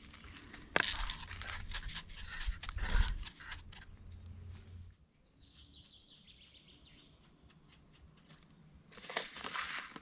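Handling rustle and crunching of dry twigs and forest litter as a wooden bird feeder is hung on a sapling, with sharp knocks about a second and three seconds in. Then it goes quieter, with a faint high bird trill for a few seconds, and crunching footsteps come in near the end.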